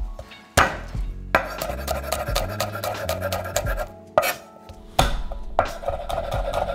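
Chef's knife chopping garlic on a wooden cutting board: a quick run of knife taps against the wood.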